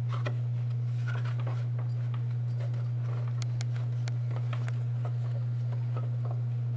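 Scattered light clicks and knocks of the metal fan clutch being worked by hand onto the water pump pulley, over a steady low hum.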